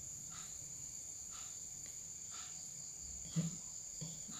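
A steady high-pitched insect trill, typical of crickets, with a faint chirp about once a second. A short, low thump sounds about three and a half seconds in, and a softer one just after four seconds.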